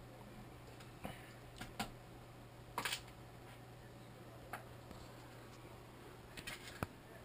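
Faint handling noise from a bare, hand-held GoPro pressed into an eye loupe: scattered light clicks and taps, loudest in a quick cluster about three seconds in and again near the end, over a steady low hum.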